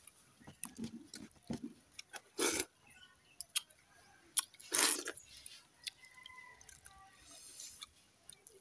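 Eating by hand: small clicks and wet sounds of fingers working watered rice in steel bowls, with two louder crunches of fried potato slices being chewed, about two seconds apart.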